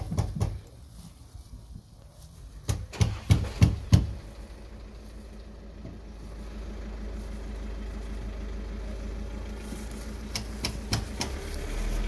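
A few sharp knocks and clicks, then the steady low hum of a vehicle engine running, slowly growing louder.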